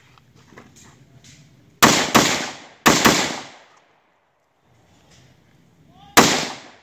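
Rifle shots fired in quick succession, each crack trailing off in an echo: two quick pairs about two and three seconds in, then a single shot after a pause near the end.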